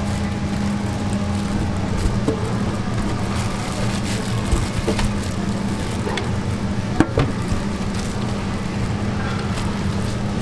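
Steady hum and hiss at a street-food frying station, where a whole skewered squid cooks in bubbling oil on a stainless steel tray, with a few light clicks scattered through.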